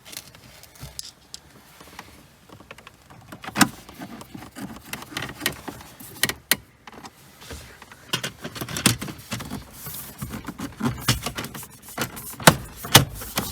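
Irregular clicks, knocks and plastic rattles of car interior trim being handled and snapped into place, with a few sharp knocks and a denser run of loud knocks near the end.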